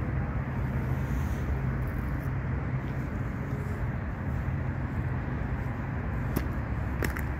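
Steady low rumble of city traffic, with a few faint clicks near the end.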